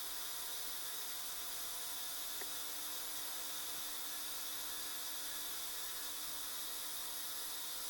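Steady hiss with a faint low hum underneath, unchanging throughout and with no distinct event.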